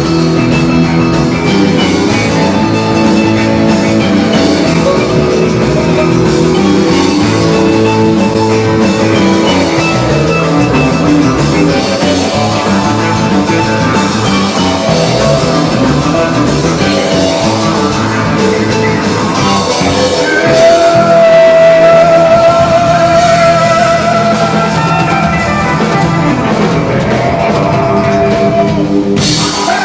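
Rock band music with drum kit and guitar and no sung words. A held high note enters about two-thirds of the way through, over the loudest stretch.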